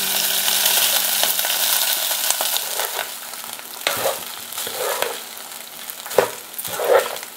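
Cooked rice dropped into a pan of hot oil and fried tempering, sizzling strongly for the first few seconds and then dying down. A plastic spatula stirs and scrapes through the rice, with a few knocks against the pan.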